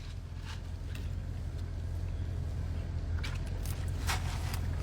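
Steady low rumble of a vehicle, growing slightly louder, with a few faint rustles and clicks over it.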